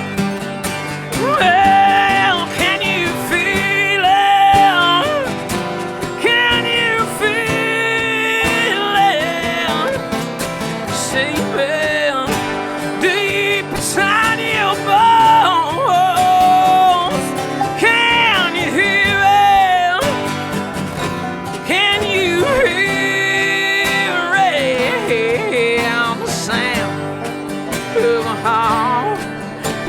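Bluegrass band playing an instrumental break: acoustic guitar accompaniment under a lead melody with sliding, bending notes.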